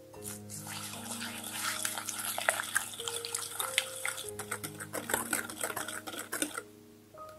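Metal wire whisk beating eggs into sugar in a ceramic bowl: fast, wet clicking and scraping of the wires against the bowl, stopping shortly before the end.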